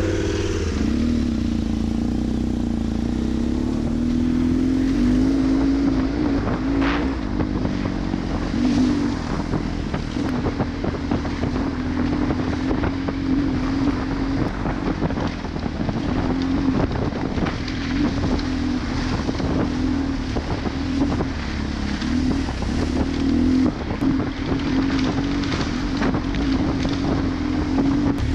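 BMW R 1150 GS Adventure's flat-twin boxer engine running steadily at riding speed, its pitch wavering slightly with the throttle, heard from the bike itself. Wind buffets the microphone, and there are frequent small knocks and rattles from riding over rough dirt.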